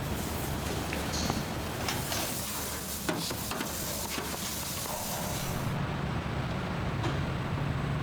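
Steady machine noise, with a few sharp clicks and knocks in the first half and a low hum coming up in the second half.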